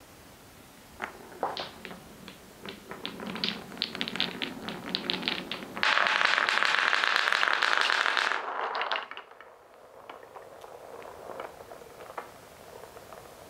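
Wooden balls rolling and clacking along a wooden marble-run track, with a quickening run of sharp knocks, then a dense rush of many balls rolling together for about two and a half seconds, the loudest part. After that come scattered light knocks as balls roll into the round wooden bowl and bump each other.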